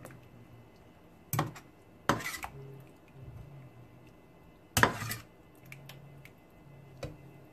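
Metal spoon stirring a thick curry in a stainless steel pan, with a few sharp clinks of spoon on pan, the clearest about a second and a half, two and five seconds in.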